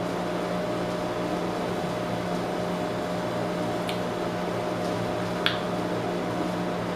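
Steady machine hum, like an air conditioner or fan running, with a couple of faint clicks partway through.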